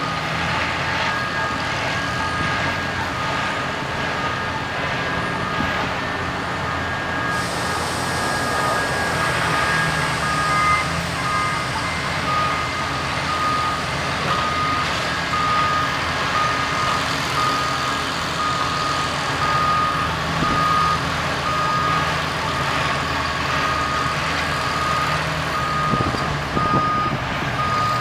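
Backup alarm on reversing railroad work equipment, beeping in slow, evenly spaced beeps, over the steady low running of heavy equipment engines.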